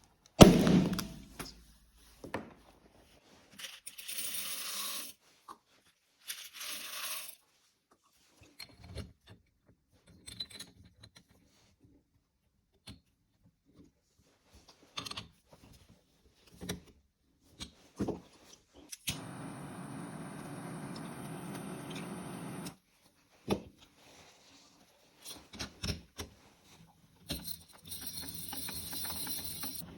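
Handling of a popcorn machine: a loud metal bang at the very start, then scattered metallic clanks, clicks and scrapes, broken by several stretches of steady hiss a few seconds long.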